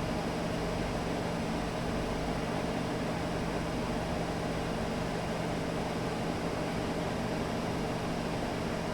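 Car engine cooling fan running steadily: a constant rush of air with a steady low hum underneath.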